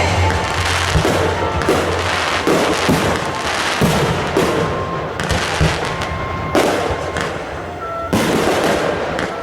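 Fireworks going off in an irregular string of bangs about every half second to second, with crackling between them. Music plays underneath.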